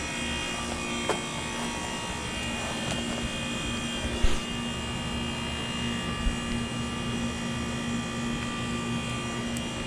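Heat pump outdoor unit running in defrost: a steady compressor hum with a constant whine over it. A short knock about four seconds in, and a softer one near the start.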